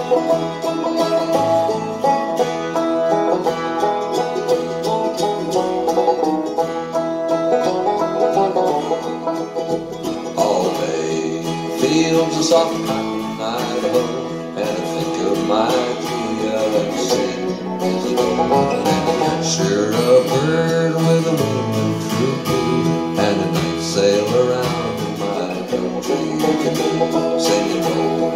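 Steel-string acoustic guitar played solo, picked and strummed in a country-folk style.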